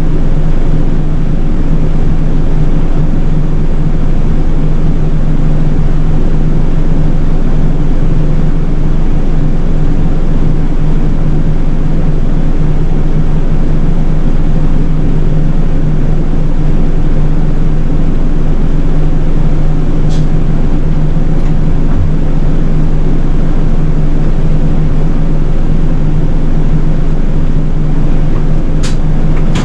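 City bus engine running steadily on the road, a constant low drone with road noise. Two faint short clicks come about two-thirds of the way through and near the end.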